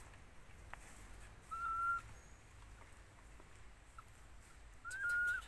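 Two short, clear whistled animal calls, each a single steady high tone held about half a second with a quick rise at its start: one about a second and a half in, the other near the end.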